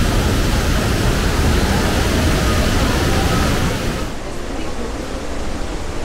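Waterfall rushing close by, a loud, dense, steady hiss. About four seconds in the higher hiss drops away and it turns duller.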